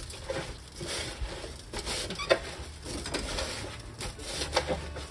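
Hands kneading and rubbing salted red shiso leaves in a stainless steel bowl: an irregular wet rustling and scraping of leaves and coarse salt against the steel, with short clicks and one sharper click a little after two seconds in. This is the second salt rubbing, done to press out the leaves' bitter purple juice.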